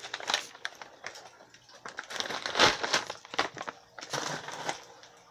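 Crinkling and rustling of a package of frozen shrimp being handled as shrimp are taken out, in several bursts, loudest a little under three seconds in.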